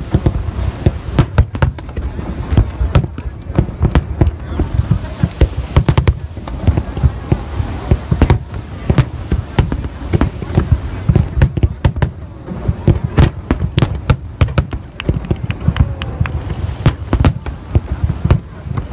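Fireworks display going off without pause: many sharp bangs a second from bursting shells, overlapping, over a deep rumble.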